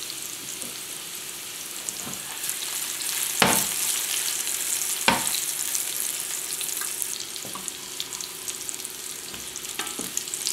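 Boiled potato pieces sizzling steadily in butter and oil in a frying pan. Two sharp knocks, about three and a half and five seconds in, as the pan is shaken and the potatoes tossed, and a plastic spatula scraping and stirring near the end.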